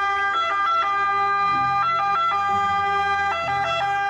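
Italian ambulance's electronic siren sounding as the ambulance drives along. It holds a steady tone, broken about every second and a half by a quick flutter between pitches.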